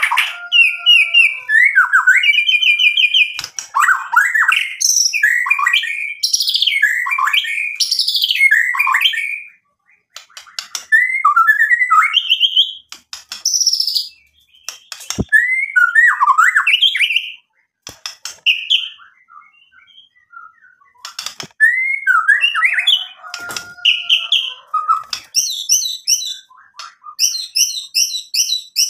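Male white-rumped shama (murai batu) singing loudly in runs of varied phrases: clear gliding whistles mixed with harsh notes, and fast repeated trills near the end. The song stops briefly about a third of the way in and again for a few seconds past the middle.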